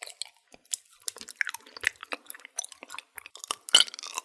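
Irregular smacking and chewing mouth noises: eating sounds made for the puppets gobbling the honey from the jar, with a louder smack near the end.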